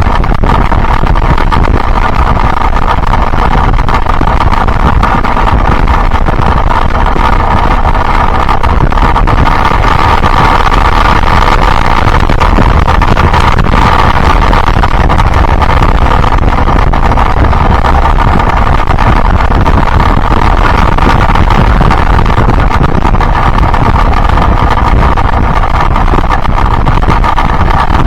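Yamaha Byson single-cylinder motorcycle engine running steadily while riding, with wind rumble on the microphone.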